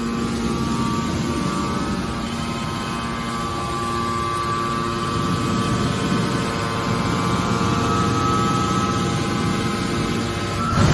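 Hydraulic scrap metal baler running: a steady hum and whine from its motor-driven hydraulic pump, with a brief louder surge near the end.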